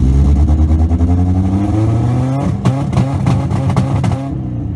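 A vehicle engine running, its pitch climbing slowly as it is revved and then dropping back to idle near the end.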